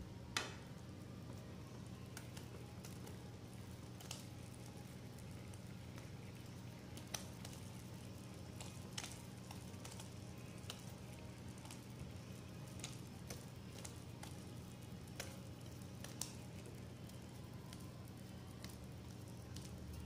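Cubes of fresh chenna (paneer) frying in hot oil in a pan: a steady soft sizzle with scattered sharp pops and crackles as the cubes are dropped in, the loudest about half a second in. A steady low hum runs underneath.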